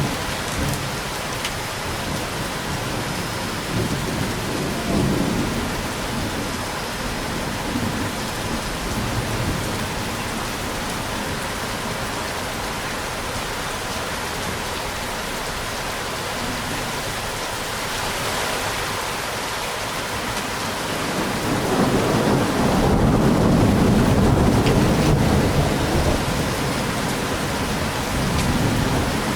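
Steady heavy rain falling, with thunder rumbling low under it. A longer, louder roll of thunder builds about two-thirds of the way in and lasts several seconds.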